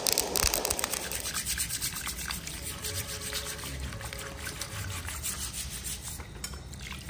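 Steel wool scouring pad scrubbing the singed skin of a pig's trotter in quick, repeated scratchy strokes, with water running over it, to clean off the charred surface.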